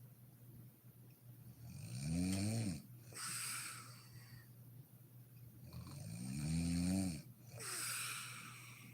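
A sleeping woman snoring: two snores about four seconds apart, each a pitched snore that rises and then falls, followed by a breathy hiss of air.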